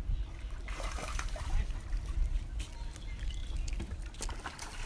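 Outdoor wind rumbling on the microphone, with scattered faint clicks and ticks over it.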